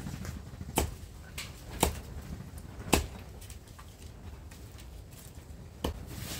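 Four sharp knocks, the first three about a second apart and the last near the end.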